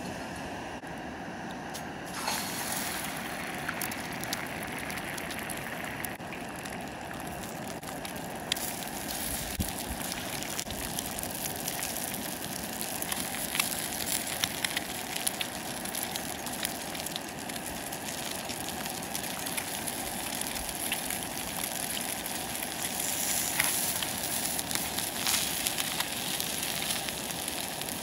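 Egg and sausages frying in oil in an iron frying pan over a cartridge gas stove. A steady sizzle with spitting crackles starts about two seconds in.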